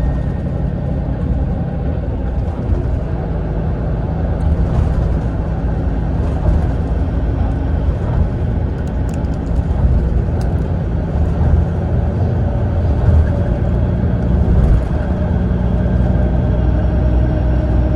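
Mitsubishi Fuso Aero Ace coach under way at road speed, heard from inside the passenger cabin: a steady engine drone and road rumble.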